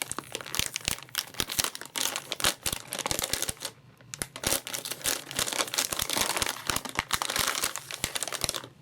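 Plastic packaging crinkling and rustling as a graphics card is unwrapped by hand, a dense run of irregular crackles with a short pause a little under four seconds in.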